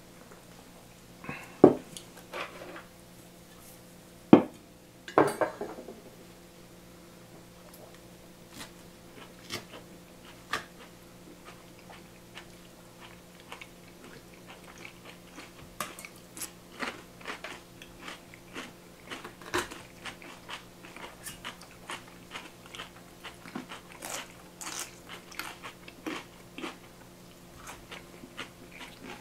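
Someone eating a meal of crispy fried chicken and shredded cabbage salad: crunchy bites and chewing, a run of small crackly crunches, with two or three sharper, louder cracks in the first few seconds.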